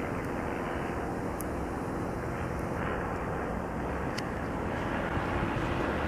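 Steady outdoor rumble of distant engines, with a faint engine hum running through it and a couple of small ticks.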